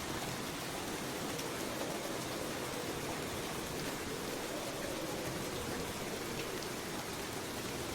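Steady rain falling, an even hiss with a few faint drop ticks and no thunder.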